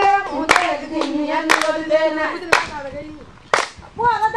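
Women singing together, with a sharp hand clap about once a second keeping the beat. The singing drops away briefly near the end, then starts up again.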